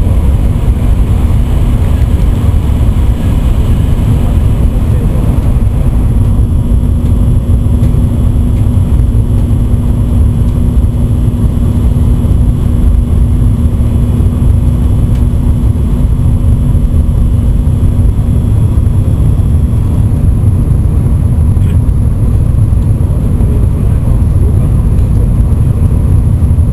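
Steady low rumble of an N700-series Shinkansen running at speed, heard from inside the passenger car. A steady hum runs under it and stops about two thirds of the way through.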